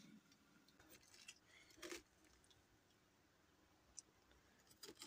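Near silence with a few faint clicks and scrapes of a spoon scooping seeds out of a halved spaghetti squash.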